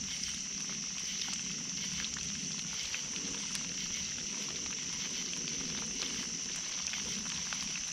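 Steady high-pitched drone of night insects, with a wood campfire crackling in small scattered pops beneath it.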